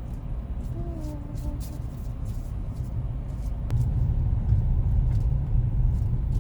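Road and engine rumble inside a moving car's cabin, a steady low drone that grows louder a little over halfway through.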